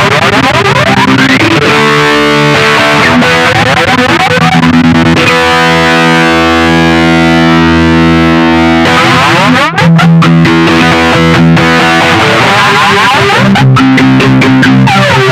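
Distorted electric guitar played through a flanger and a delay pedal, rapid repeated strokes with a sweeping jet-like whoosh, trying to imitate a helicopter. About a third of the way in a chord rings out for several seconds, then after a brief break the fast strokes come back.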